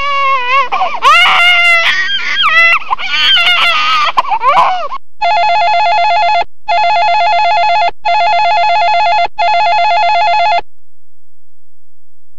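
A sound effect of sliding, wavering cries for about five seconds, then four long, steady electronic tones of one pitch, each about a second long with short gaps between them.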